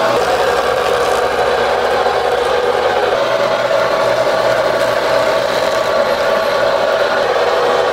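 Motorised fish-skinning machine running steadily: a loud, even mechanical hum and whir that does not change.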